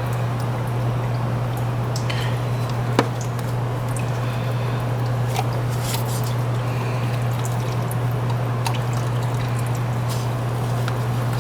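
Scattered small clicks and taps of parts being handled as a thermostat housing is fitted and its screw started by hand, with one sharper click about three seconds in, over a steady low hum.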